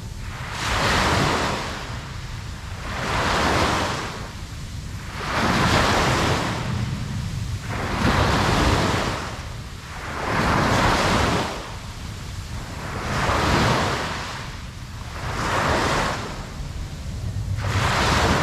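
Ocean surf washing in and out with a steady low rumble. Each wash swells and fades evenly, about once every two and a half seconds.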